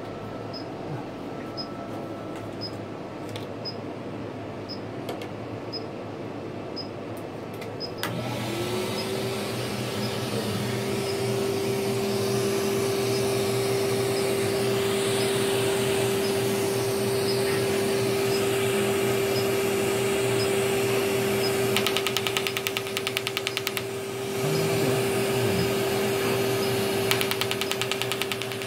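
Erbium (Er:YAG) ablative resurfacing laser at work. About eight seconds in, a machine motor spins up and hums at one steady pitch. Later the handpiece fires in rapid trains of ticking pulses, once for a couple of seconds and again near the end, as the laser ablates the skin of the face.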